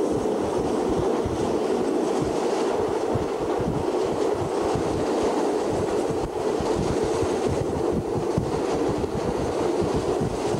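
Passenger train running steadily along the track: a continuous rumble of wheels on rails, heard from aboard a carriage, with uneven low thumps beneath it.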